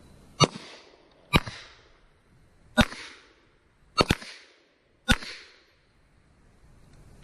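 Five gunshots fired in steady succession, roughly a second apart, each followed by a short echoing tail.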